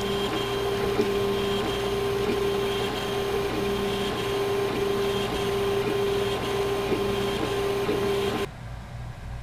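3D printer running: stepper motors give a steady whine and the print head's cooling fans whir as the extruder lays plastic over metal washers inserted mid-print. The sound drops away about eight and a half seconds in.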